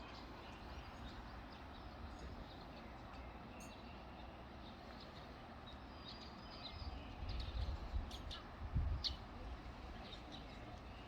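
Faint, scattered bird chirps over steady outdoor background noise, with a low rumble that swells for a couple of seconds past the middle.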